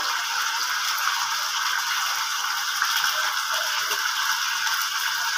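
Steady fine crackling hiss of a little cooking oil heating in a hot aluminium wok, with a couple of faint light knocks.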